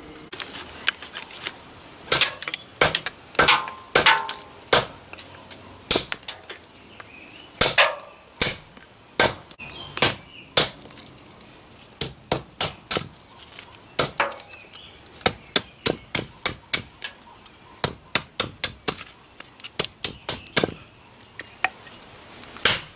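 Skandia hatchet chopping and splitting kindling sticks off a wooden plank: a long run of sharp chops, roughly two a second, a few with a short ring.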